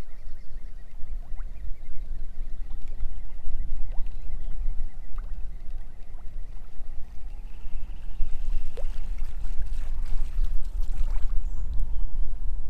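Wind buffeting the microphone over choppy water lapping against a floating jetty. A little past halfway comes some splashing as a hooked pike breaks the surface.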